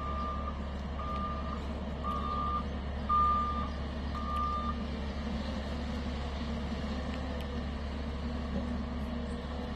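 Bulldozer's backup alarm beeping about once a second as it reverses, over the steady rumble of its diesel engine. The beeping stops about halfway through while the engine keeps running.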